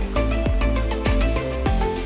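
Background music with a steady beat: electronic percussion, sustained synth notes and deep bass.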